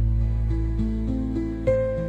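Soft instrumental background music: a low sustained bass note under a slow line of held notes that step upward one after another.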